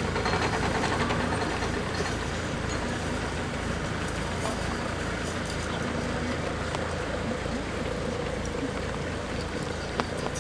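Narrowboat diesel engine running slowly, a steady low pulse under a broad haze, with one sharp click near the end.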